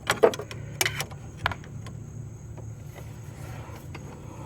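Hand tools clicking and knocking against metal as a fuel line is pushed back into its quick-connect fitting: a few sharp clicks in the first second and a half, then only a low steady hum.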